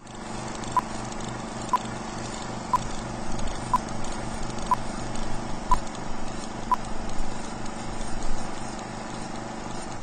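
Old film projector running with a steady rhythmic clatter and hiss, under a film-leader countdown: a short high beep once a second, seven times, then the clatter alone until it cuts off suddenly.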